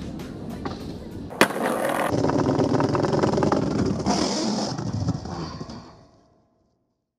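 Skateboard landing a flip trick down a stair set: one loud slap of the board and wheels hitting the ground about a second and a half in, then the wheels rolling away over paving, fading out after about six seconds.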